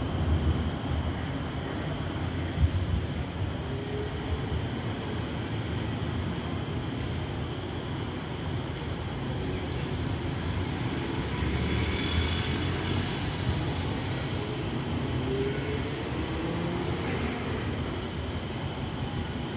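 Steady rain with wind in the trees: a continuous rushing noise with a low rumble underneath.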